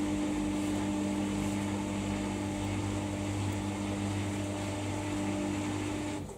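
Samsung EcoBubble washing machine running with a steady electrical hum over a wash of water noise, which cuts off suddenly near the end.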